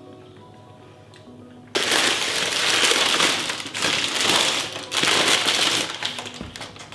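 Paper grocery bag crinkling and rustling loudly as it is handled and opened. It starts suddenly about two seconds in, with soft background music before it.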